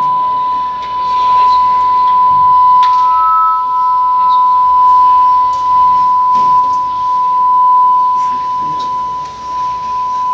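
A loud, steady, high beep-like tone held without a break. A second, slightly higher tone joins it for about two seconds, around three seconds in, over faint clicks.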